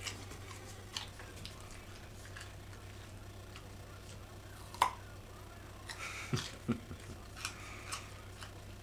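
Dog chewing a raw carrot: scattered crisp crunches and clicks, the loudest about five seconds in, with a quick run of them near the end.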